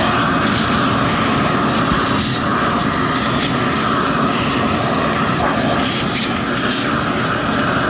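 Shop vac running steadily at full suction, with slight shifts in its tone as dirt from an emptied vacuum-cleaner bag is sucked up.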